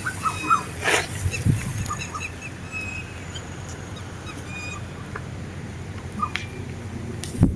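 Birds calling with short chirps and whistles, over the low rumble of wind on the microphone that gusts in the first second and again near the end.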